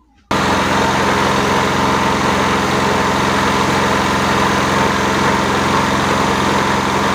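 Motor-driven grinding mill switched on, starting abruptly a fraction of a second in and then running steadily at one constant pitch.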